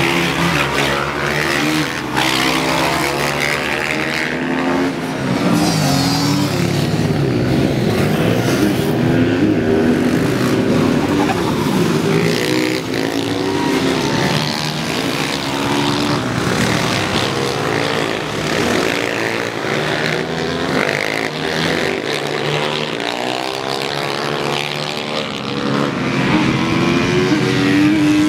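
Several mini supermoto race motorcycles running hard on the track, their engines rising and falling in pitch as the riders accelerate, shift and brake, with several engines overlapping.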